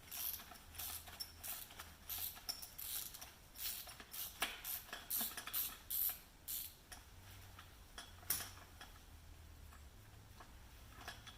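Ratchet wrench clicking in short runs as a 10 mm bolt on a transmission shift rod is backed out, a few clicks a second. The clicking thins out after about seven seconds, with one sharper metallic click a little later.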